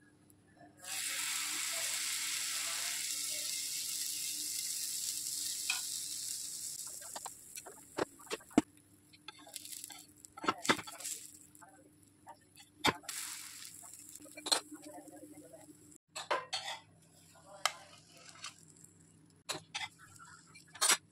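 Pancake batter sizzling on a hot oiled griddle: a loud hiss starts suddenly about a second in and dies down over several seconds. Then come sharp clicks and scrapes of a metal spatula against the pan, with a brief second sizzle.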